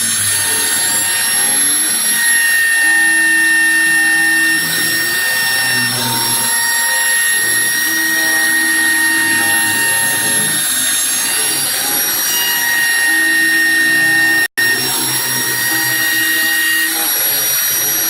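Homemade CNC router running: a loud, steady spindle whine, with the stepper motors' lower hum coming and going in short moves every couple of seconds. The sound cuts out for an instant near the end.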